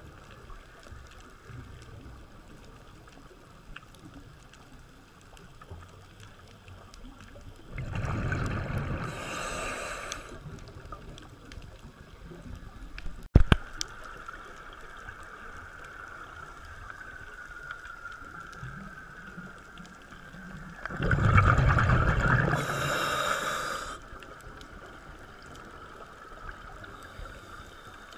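A scuba diver's exhaled breath bubbling out of the regulator twice, each burst about two to three seconds long, heard underwater. A single sharp click comes between the two breaths.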